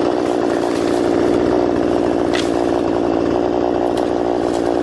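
Chainsaw engine running steadily. A couple of sharp snaps come through about two and a half and four seconds in, as long-handled loppers cut through branches.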